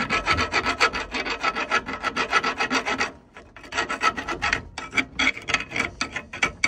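Hand file rasping in rapid short strokes inside the end of a steel pipe fitting clamped in a bench vise, taking down the inner seam and burr. The strokes pause briefly about three seconds in, then resume.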